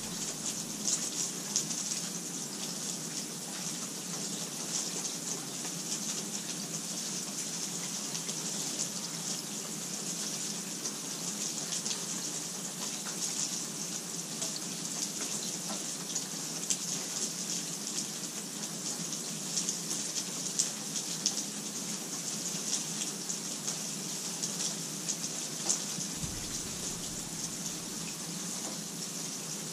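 Steady rainfall, an even hiss of rain with scattered individual drops ticking through it. A low rumble comes in near the end.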